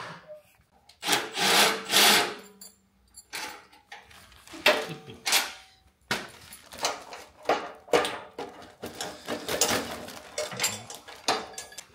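Hand-tool work on the bolts of a motorcycle's metal shipping stand, with plastic sheeting rustling: bursts of scraping and rubbing, then a run of short clicking strokes in the second half.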